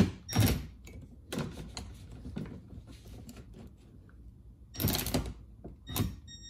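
A few sharp clicks and knocks in the first second and a half as the carbon-look rear apron is handled and adjusted under the car's bumper, then a short rustling scrape about five seconds in and another near the end.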